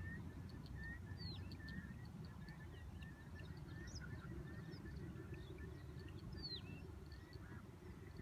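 Several birds chirping and calling, with short repeated notes and two clear falling whistles, over a steady low rumble.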